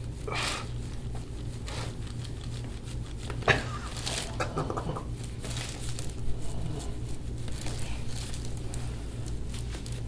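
Quiet scattered rustling and rubbing from deep forearm pressure on an oiled back and the towel beneath the hand, over a steady low hum, with one sharp click about three and a half seconds in.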